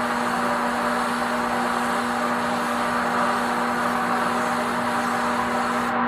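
Spectrum HTE 1.3 gravity-feed paint spray gun hissing steadily with the trigger held as it sprays base coat, over a steady low hum; the hiss cuts off right at the end as the trigger is released.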